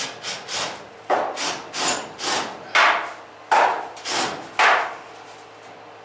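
Cordless drill-driver working at a stubborn last screw in galvanized sheet-metal ductwork: about ten short grating bursts, roughly two a second, that stop near the end.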